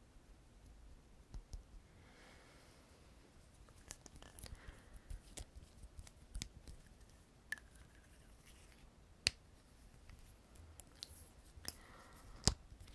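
Irregular small clicks and taps of a makeup pencil and its cap being handled close to the microphone, with some soft rustling; two sharper clicks stand out, one in the middle and one near the end.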